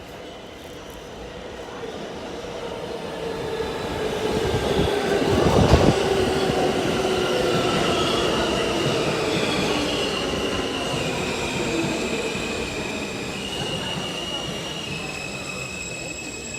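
R160 subway car's steel wheels grinding and squealing on the rails as the train runs, with several high whining tones held over the rumble. The noise builds to a sharp knock about six seconds in, then slowly eases off.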